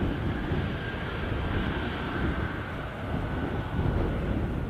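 F-35 Lightning II jet engines, Pratt & Whitney F135 turbofans, running as the jets taxi onto the runway: a steady rumble with a faint high whine over it.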